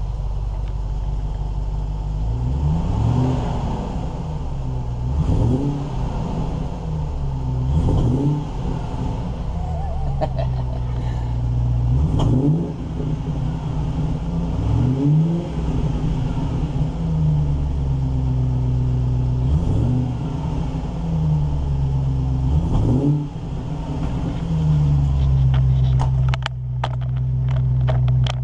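A 1994 NAS Land Rover Defender's V8, warmed up and running through a new Magnaflow exhaust, revved in quick blips about every two and a half seconds, each rise in pitch falling back to idle. It settles to a steady idle near the end.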